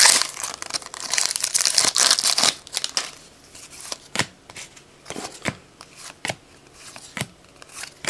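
Foil trading-card pack wrapper crinkling and tearing for the first couple of seconds. Then a run of light clicks as the cards are flipped through one at a time.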